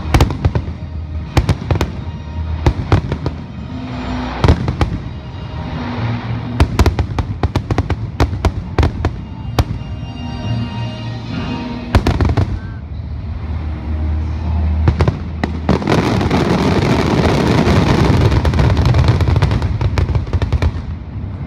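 Fireworks show: sharp bangs of shells bursting, one after another, over the show's music. About three quarters of the way in, the bursts thicken into a loud, near-continuous barrage.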